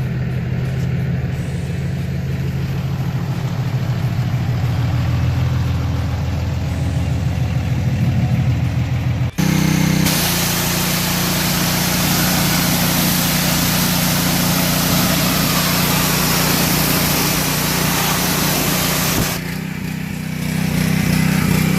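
An engine runs steadily for about nine seconds. After a brief break, the loud hiss of a gas Simpson pressure washer's high-pressure water spray runs over its engine hum for about nine seconds, then stops, leaving the engine running.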